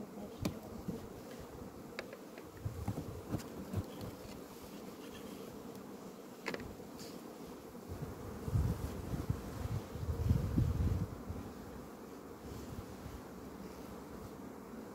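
Honeybees buzzing steadily over an open hive. A few sharp clicks and knocks come from wooden hive frames being handled, and there is a stretch of low rumbling around nine to eleven seconds in.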